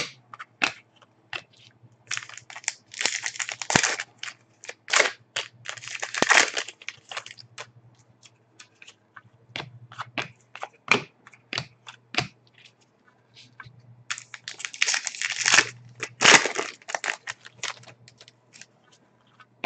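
2008-09 Upper Deck SPx hockey cards handled on a table: flicked, slid and shuffled by hand, making a run of quick snaps and rustles, with two busier stretches of rustling.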